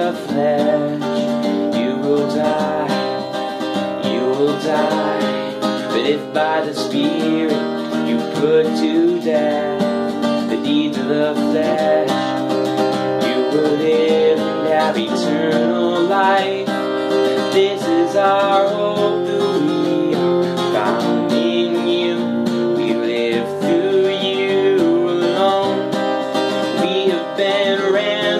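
Acoustic guitar strummed steadily, with a solo voice singing along to it.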